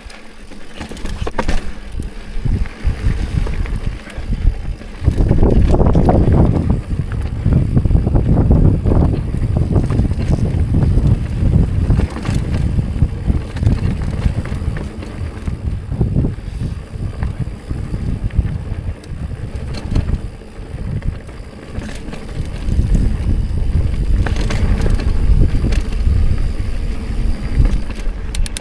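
Mountain bike ridden over a rocky dirt trail: tyres rolling and clattering over rock, with wind on the microphone. It is loudest about five to nine seconds in and again near the end.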